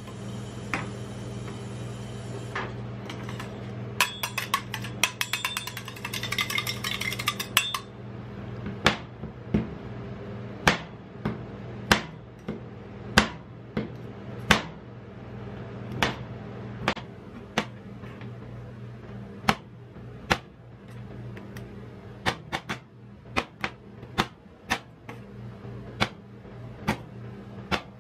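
Metal spatula blades striking a steel ice-cream cold plate as they chop chocolate bars into chunks: sharp, irregular clacks about once a second, with a quick rattling run of strikes from about four to eight seconds in, over a steady low hum.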